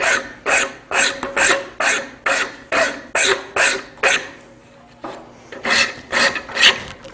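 Handmade French rasp stroking across a wooden axe handle, quick scraping strokes about three a second, a pause of about a second, then a few more strokes. The handle's fat spots are being rasped down to fit the axe head.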